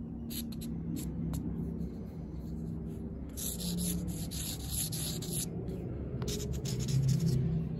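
Marker pen scratching across the rough steel face of an anvil, marking the high spots to be ground down: a few short strokes, a longer one about three to five seconds in, then more short strokes, over a steady low hum.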